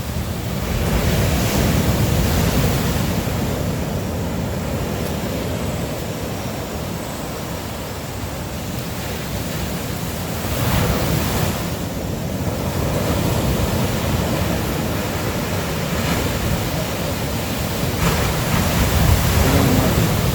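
Ocean surf breaking on a sand beach: a continuous wash of waves that swells three times, about a second in, halfway through and near the end.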